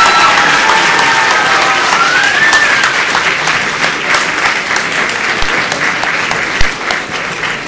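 Audience applauding, a dense steady patter of many hands, with a few voices cheering in the first few seconds.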